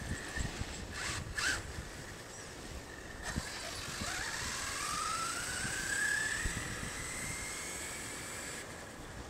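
Arrma Kraton 6S RC truck's brushless motor and drivetrain whining. Two short throttle blips come about a second in, then a long whine rises steadily in pitch for about four seconds as the truck speeds up, and levels off near the end.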